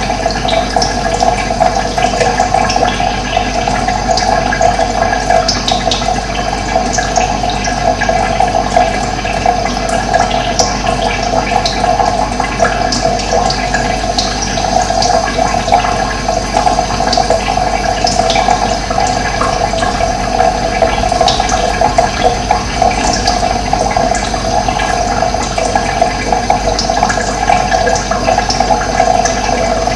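Steady rush of running water, with small birds chirping now and then above it.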